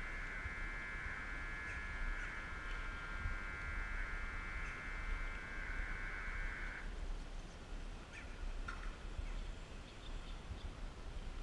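Steady, high electronic warning buzzer of a sliding footbridge, sounding continuously and cutting off abruptly about seven seconds in.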